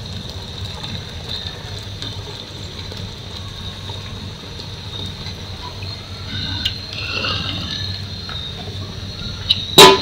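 A steady stream of water pouring and splashing into a large metal pot of hot, milky conditioner mixture. A sharp knock sounds just before the end.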